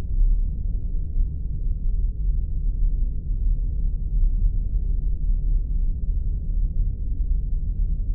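Spaceship sound effect: a steady, unchanging low rumbling drone like a starship's engine hum.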